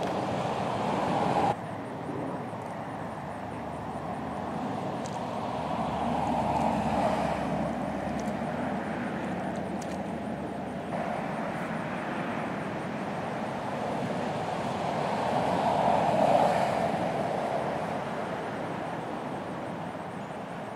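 Road traffic passing: tyre and engine noise that swells and fades twice, with abrupt changes in the background where the footage cuts.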